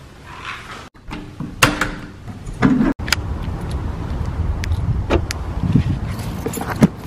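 Knocks and handling noise, then a steady low rumble broken by several sharp clicks as a flip-key car key fob is handled beside the car.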